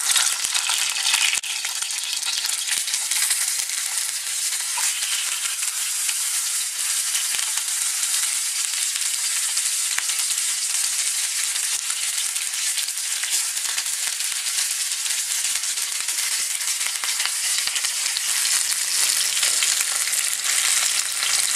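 Chicken pieces sizzling as they shallow-fry in a little hot oil in a frying pan. The sizzle starts suddenly as the first piece goes in and carries on as a steady hiss while more pieces are added.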